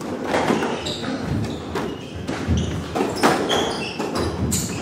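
Squash ball and racquet knocks and thuds echoing in a squash court, a string of separate sharp hits, with short high sneaker squeaks on the wooden court floor between them.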